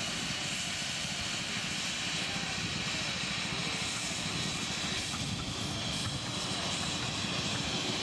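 A 7¼-inch gauge live-steam model of an LMS Black Five locomotive running past with a passenger train: a steady hiss of steam over a low, fast rumble of the running train.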